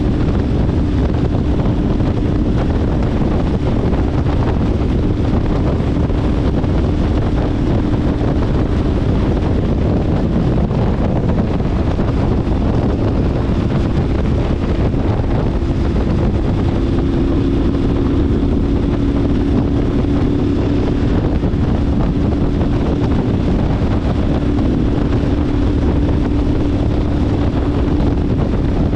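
KTM 1290 Super Adventure S's 1301 cc V-twin running at a steady cruise under heavy wind noise on the microphone from riding speed. The engine note shifts slightly about halfway through.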